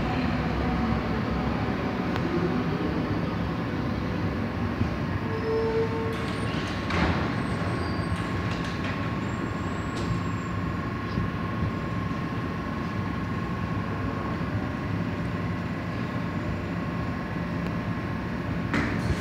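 Steady hum of a U-Bahn train standing at a platform in an underground station, with a faint steady whine joining about seven seconds in. A short tone sounds about six seconds in, and there are a few light knocks.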